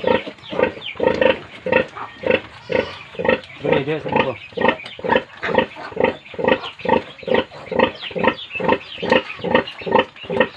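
Sow grunting in a steady rhythm, about three short grunts a second, while her piglets suckle: the rhythmic nursing grunts that go with milk let-down.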